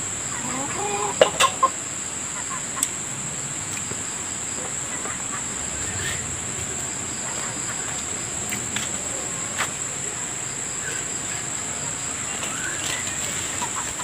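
A chicken clucking a few times over a steady high-pitched insect drone, with a few sharp clicks about a second in.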